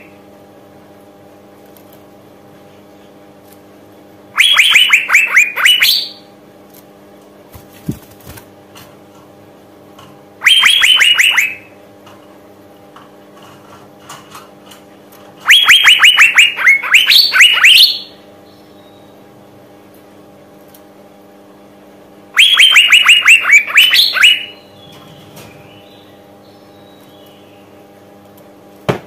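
Female Asian fairy-bluebird calling: four bouts of rapid, sharp, repeated notes, each bout lasting one to two and a half seconds, with pauses of several seconds between them. These are the calls used as a lure to set male birds singing. A faint steady hum runs underneath.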